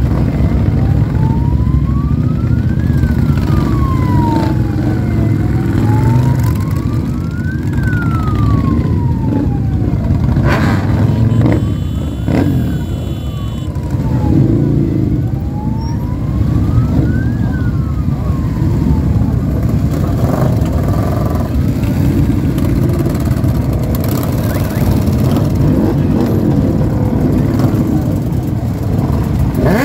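Engines of a long procession of motorcycles running loudly as they ride past, with a siren wailing in a slow rise and fall behind them for about the first twenty seconds. Near the end one bike revs up.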